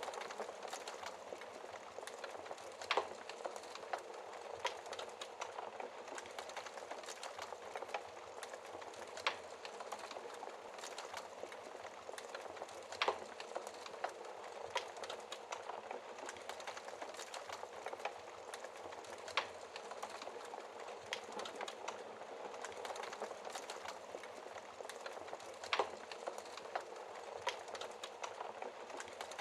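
Wood fire crackling in a fireplace: a steady hiss and crackle with a sharp, louder pop every few seconds.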